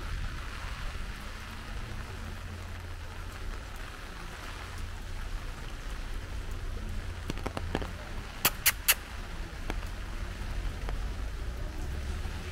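Steady rain falling on a wet street and pavement: an even hiss with a low rumble underneath. About two-thirds of the way through, three sharp taps in quick succession are the loudest sounds.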